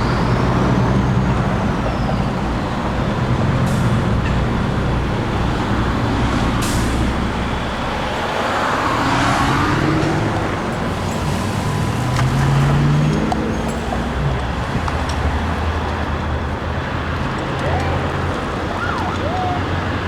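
Fire apparatus engine running with a steady low rumble amid road noise; near the end come a few short rising-and-falling siren whoops.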